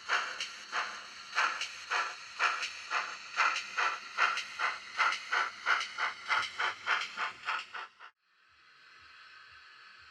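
Sound decoder of an OO gauge Mogul model steam locomotive playing exhaust chuffs through the model's speaker, quickening to about four a second. The chuffs cut off suddenly about eight seconds in, leaving a steady hiss.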